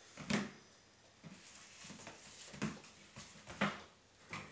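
Pug puppy playing with a cardboard box on a wooden floor: a string of short, sharp sounds, about seven in four and a half seconds, the first the loudest.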